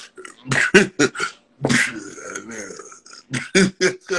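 A man laughing hard in short, loud bursts, with one longer drawn-out laugh in the middle.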